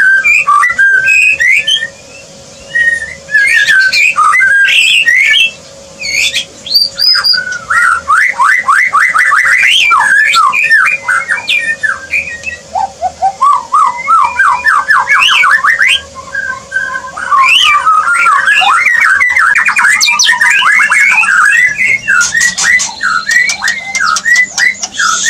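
White-rumped shama (murai batu) singing a loud, fast, varied song of whistles, sweeping notes and rapid trills, with a few brief pauses.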